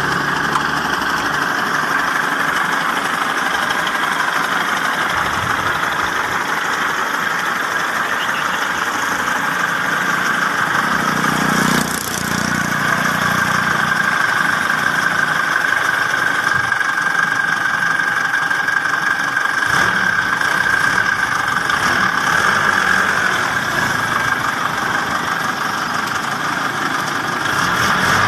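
Toyota FJ40's swapped-in BJ40 four-cylinder diesel engine idling steadily.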